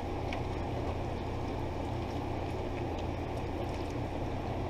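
Fettuccine being turned with tongs in a pan of simmering cream sauce: a few faint clicks over a steady low hum and hiss.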